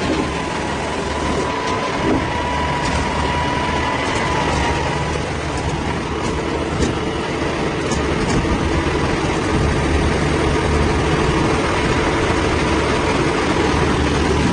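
A heavy engine running steadily at a low, even pitch, with a few light clicks and knocks over it.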